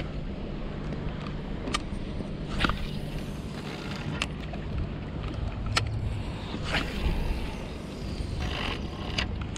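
Wind rumbling on the camera's microphone over the wash of the sea, with a handful of sharp clicks scattered through.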